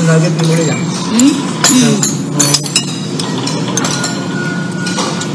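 Metal spoon clinking against a plate several times while eating, over a steady low background hum.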